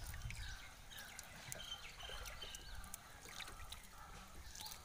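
Water trickling and dripping with small splashes as a fish is worked loose from a monofilament net in shallow water. A few short high chirps sound faintly here and there.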